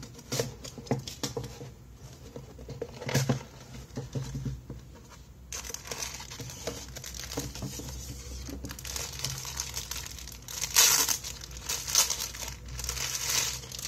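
Cardboard box being opened, with scattered clicks and scrapes as its seal is cut and the flaps lifted. Then, from about five seconds in, a clear plastic bag crinkling steadily as it is handled and unwrapped, loudest near the end.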